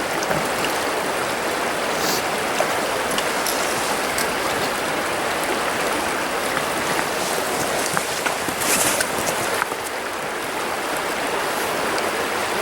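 Creek water running over riffles: a steady rush, with a couple of brief rustles or scrapes on top.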